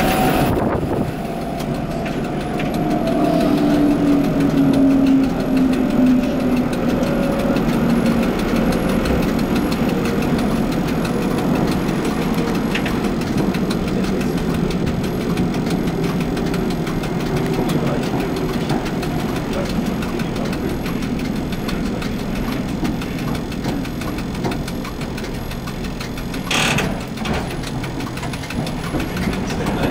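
Cab of a 1960 Bern Standard tram: traction motor and gear whine falling slowly in pitch as the car slows, over the steady rumble of steel wheels on rail. A sharp clack about 26 seconds in, and the whine starts rising again near the end as the tram picks up speed.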